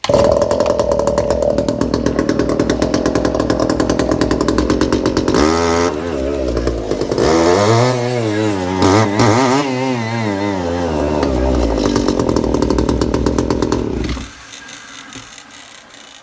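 Echo SRM-3110 brush cutter's small two-stroke engine running, revved up and down several times through the middle, then cut off about fourteen seconds in. It runs well now that its plugged muffler has been cleared.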